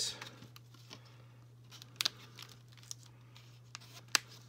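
Plastic box packaging crinkling, then a few short sharp snips as pliers cut through the plastic ties holding a doll to its tray; the loudest snip comes near the end. A steady low hum sits underneath.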